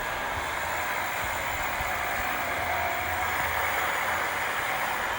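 A 12 V electric motor driving a small axial-flux permanent-magnet generator, running steadily with an even whirring hiss and a low hum beneath.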